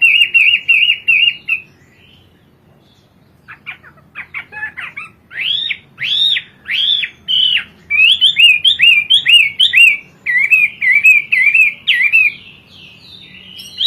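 Chinese hwamei (melodious laughingthrush) singing loudly in varied whistled phrases. A quick run of repeated notes stops about two seconds in, and after a pause the bird resumes with scattered notes, then slow arched whistles and rolling, rapid trills.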